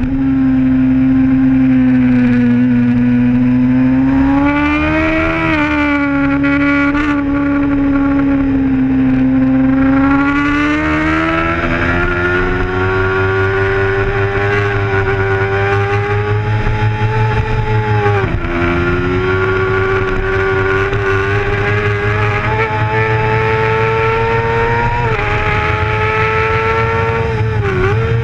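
Racing sport bike engine held at high revs, picked up by a camera mounted on the bike. The pitch climbs slowly through long pulls, with brief dips in pitch around the fifth second, about two-thirds of the way through and near the end.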